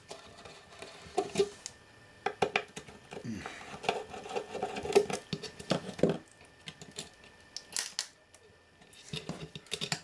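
Hands and a screwdriver working a circuit board loose from its aluminium chassis: irregular small clicks and knocks, with a stretch of light scraping in the middle, as screws come out and the board is handled.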